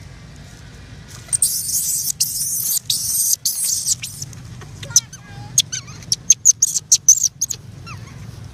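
Baby long-tailed macaque squeaking: a run of short, sharp, high chirps in the second half. Before it, about a second in, a loud high hiss starts and lasts nearly three seconds.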